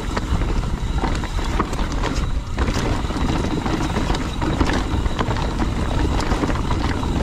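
Mountain bike riding down a rough, rocky trail: tyres clattering over stones and the bike rattling in a stream of quick knocks, over a steady low rumble.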